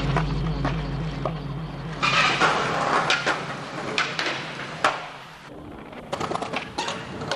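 Skateboard on concrete: wheels rolling, sharp clacks of the board popping and landing, and a scraping slide along a ledge.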